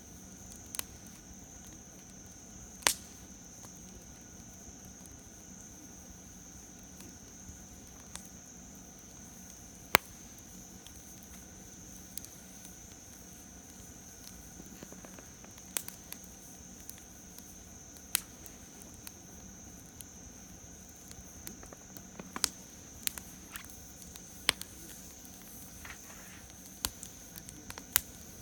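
Wood campfire crackling: scattered sharp snaps and pops at irregular intervals, coming more often in the second half, over a steady high-pitched drone.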